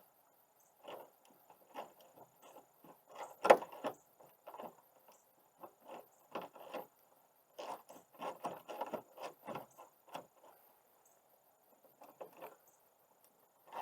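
Light metallic clicks and rattles as the end fitting of a screw-type gas lift support is worked into line with its mount on a car's rear hatch, with one sharper click about three and a half seconds in.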